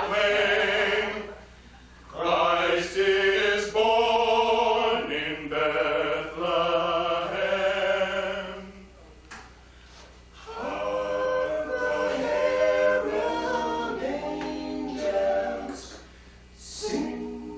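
Men's a cappella vocal group singing in harmony, several voices at once, with a few brief pauses between phrases.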